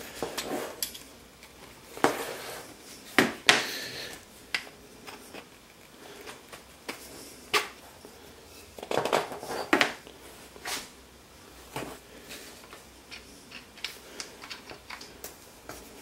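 Plywood parts and hardware handled on a tabletop: scattered knocks and clicks as a threaded rod and a plastic knob are fitted into the wooden bracket, with a short cluster of clatter about nine seconds in.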